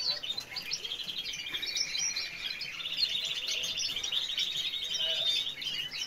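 Timbrado canaries singing: a steady low trill about a second and a half in gives way to a faster, higher rolling trill, with scattered chirps around it.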